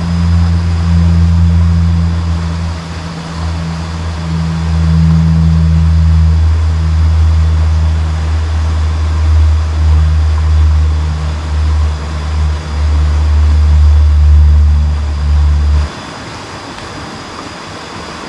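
Loud, uneven low rumble of wind buffeting the action camera's microphone, cutting off suddenly near the end and leaving the faint hiss of the stream.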